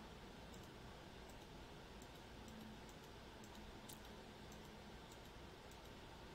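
Faint computer mouse clicks, over a dozen and irregularly spaced, against near silence, as notebook cells are run one after another.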